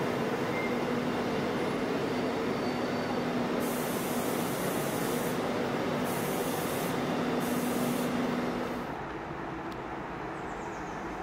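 InterCity passenger train of coaches rolling slowly along the platform with a steady hum. Three short bursts of hissing air come about midway. Near the end it drops to quieter station background.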